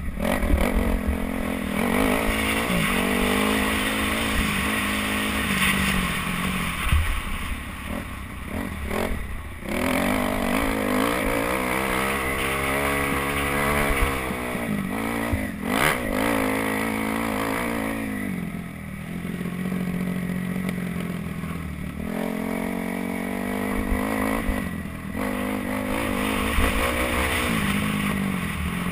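Kawasaki KX250F's single-cylinder four-stroke engine revving up and down as the motocross bike is ridden around the track, the pitch climbing through the gears and dropping off between pulls, with one long rising pull about halfway through.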